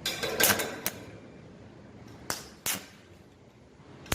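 Metalwork on a steel door and frame: a short burst of sharp crackling at the start, then two single sharp metal clicks a little over 2 s in, and another crackling burst begins right at the end.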